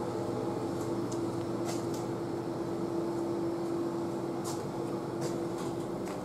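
Steady electrical hum of a row of running vending machines, one low droning tone over a faint whir, with a few light ticks.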